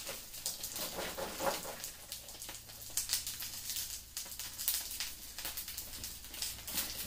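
Pot stickers frying in oil in a nonstick pan, an irregular crackling and popping sizzle.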